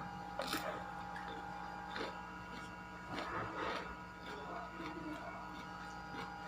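Mouth-close crunching and chewing of raw vegetables, a few crisp bites at irregular moments, over a steady electrical hum.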